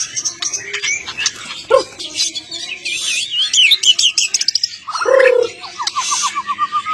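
Songbird masteran recording: a quick succession of varied chirps, warbles and trills, with a wavering warble about halfway through and a fast run of repeated notes near the end.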